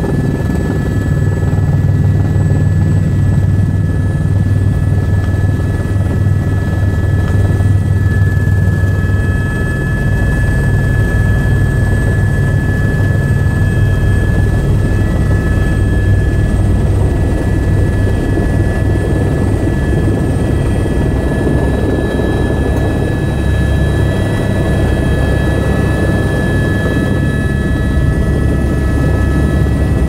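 Helicopter turbine and rotor heard from inside the cabin during the descent and landing: a steady high whine over a heavy low rotor throb, which shifts lower about ten seconds in.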